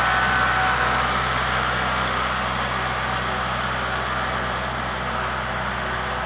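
Kubota MX5400 tractor's four-cylinder diesel engine running steadily.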